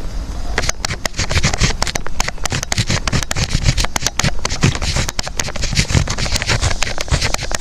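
Desk sounds of someone studying: a quick, uneven run of sharp clicks over a scratchy rustle.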